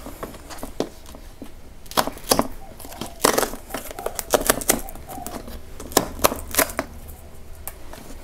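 Cardboard mailer box handled in the hands: fingers scraping, tapping and rubbing on the cardboard in a few short spells of sharp scrapes and taps.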